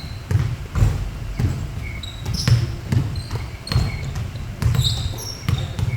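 Basketballs bouncing on a gym floor during a shooting drill: irregular dull thuds from more than one ball, with short high squeaks in between.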